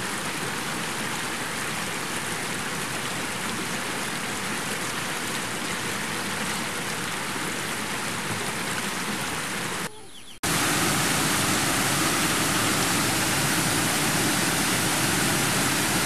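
Steady rush of a fast, shallow river pouring over boulders. About ten seconds in it cuts off for a moment, and a louder, even rushing noise takes over.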